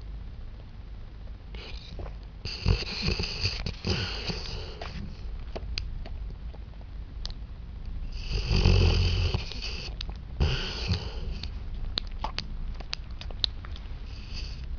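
A sleeping pet snoring and snuffling: several long, noisy breaths, the loudest about eight seconds in, with small clicks between them.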